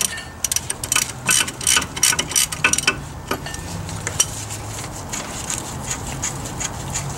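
A wrench backing off the freshly broken-loose ball joint nut on a Foxbody Mustang's front spindle, with a quick run of metallic clicks for the first three seconds or so. After that come only occasional ticks over a steady low hum.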